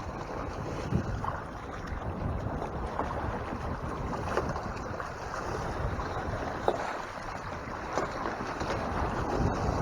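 Water rushing and splashing along the hull of a Hobie Mirage Tandem Island sailing kayak under sail, with wind buffeting the microphone and now and then a brief splash.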